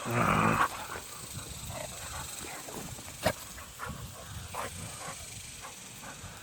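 Dogs play-fighting: a loud growl at the start, then scattered quieter growling sounds, and a sharp click about three seconds in.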